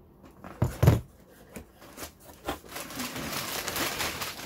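A cardboard shipping box being opened and handled: a loud thump against the box about a second in, then the rustle and crinkle of crumpled packing paper being pulled out of it.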